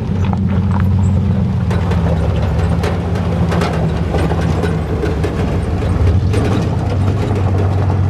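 1994 Chevrolet 2500 pickup's engine running with a steady low drone as it drives slowly through a shallow, stony creek, with scattered clicks and crunches of gravel under the tyres and water splashing.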